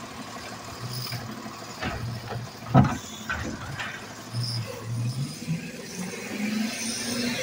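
Automated side-loader recycling truck emptying a cart: the hydraulic arm works and the diesel engine revs up and down, with several knocks and one loud bang about three seconds in as the cart is tipped and brought back down. Near the end the engine note rises steadily as the truck pulls away.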